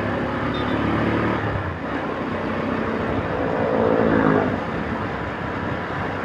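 Rusi Gamma 200 motorcycle engine running while riding along a city street, under wind and road noise. The engine note rises a few seconds in and then eases back.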